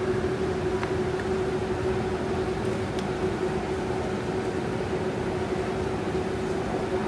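Steady supermarket machinery hum: an even mechanical drone holding one constant tone, with a couple of faint clicks.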